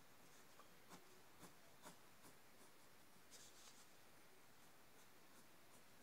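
Faint scratching of a pencil sketching on paper: short, irregular strokes, barely above room tone.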